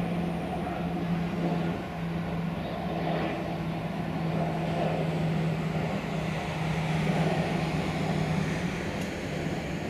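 Distant Boeing 737-800's twin CFM56 turbofan engines at high thrust during the takeoff roll: a steady rumble with a low droning tone.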